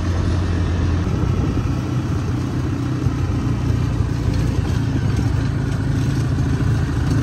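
Off-road vehicle's engine running steadily as it drives along a rutted dirt track. About a second in, the engine note changes abruptly at a cut, to a slightly higher, rougher drone.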